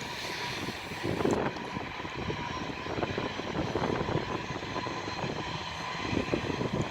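Jet airliner's engines at takeoff power: a steady, distant roar with a faint steady whine running through it.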